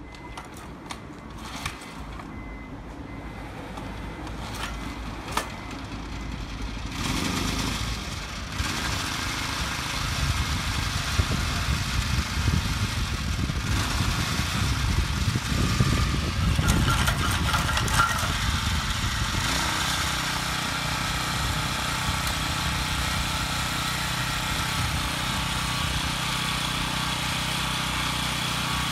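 Honda Komame F200 mini tiller's small 2 hp engine running. It comes up about seven seconds in, is loudest in the middle with the revs rising and falling, then settles to a steady run with the tines spinning freely.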